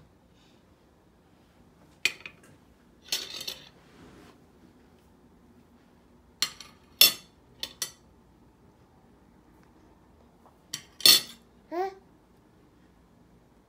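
Plastic measuring cups and a glass knocking and clinking against a stainless steel mixer-grinder jar and plates as ingredients are added, in a series of separate sharp knocks with quiet in between. Near the end comes a brief vocal sound.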